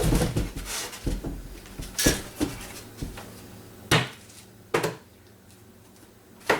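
Knocks and bumps of a wooden workbench being shoved into position: a low scraping rumble in the first second or so, then several sharp separate knocks, the loudest about four seconds in.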